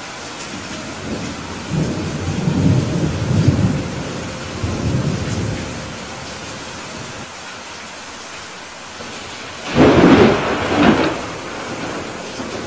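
Thunderstorm: steady rain hiss with a low rolling rumble of thunder from about two to five seconds in, then a loud, sudden thunderclap about ten seconds in with a second crack right after.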